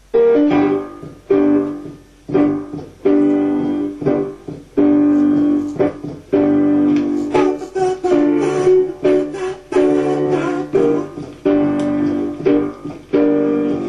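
Piano chords struck over and over, roughly once a second, each ringing out and fading before the next.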